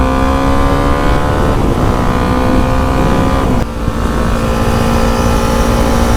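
Motorcycle engine under way, pulling with its pitch rising slowly, then a brief dip and drop in pitch about three and a half seconds in as the rider shifts gear, after which it holds steady. Wind rumbles on the helmet microphone.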